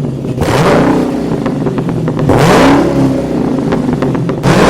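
Race car engines revving hard, the engine note swooping up and down several times as cars accelerate and pass, with a few short sharp cracks about a second and a half in.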